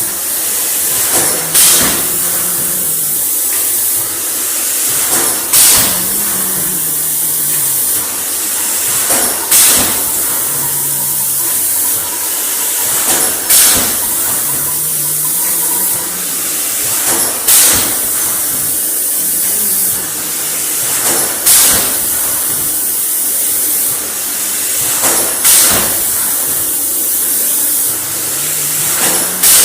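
Mineral water production machine running in a regular cycle: a steady high hiss, with a sharp burst of noise about every four seconds, each burst preceded by a brief low hum that rises and falls.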